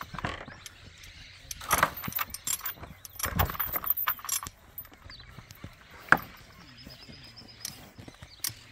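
Metal rattling and clanking from a wooden farm gate's latch and fittings as it is worked open from horseback, in irregular clusters, with a couple of sharp single clacks later on.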